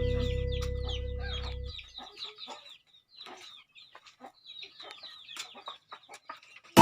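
Chickens clucking softly in short scattered calls, as background music fades out in the first two seconds.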